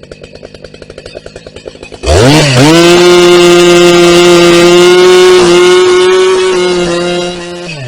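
Husqvarna 380 CD two-stroke chainsaw idling, then throttled up sharply about two seconds in and held at a high, steady full-throttle pitch for about five seconds before dropping back to idle near the end.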